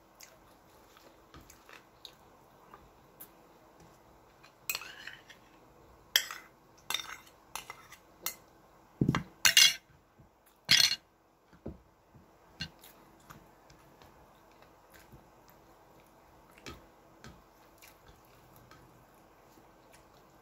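Spoon and plate clinking and scraping while someone eats: a cluster of sharp clinks and knocks from about five to eleven seconds in, one with a dull thump, then only faint scattered ticks.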